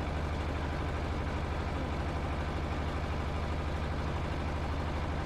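Small fishing boat's engine running steadily with a low, even hum.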